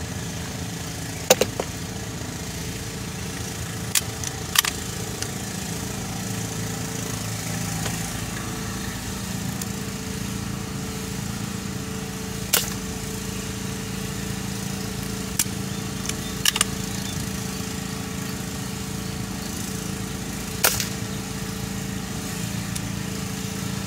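Vehicle engine idling steadily, with several short, sharp clicks now and then.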